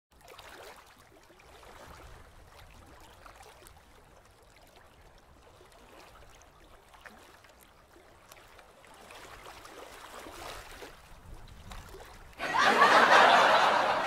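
Faint background noise with scattered light clicks. About twelve seconds in, loud laughter and chatter from several people starts suddenly.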